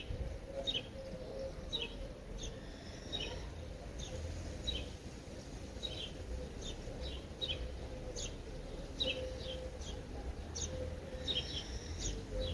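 Small birds chirping: many short, high chirps in quick succession, about two a second, continuing throughout.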